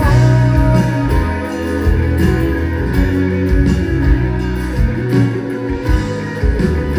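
Live pop band playing an instrumental passage between sung lines, with guitar to the fore over bass and drums.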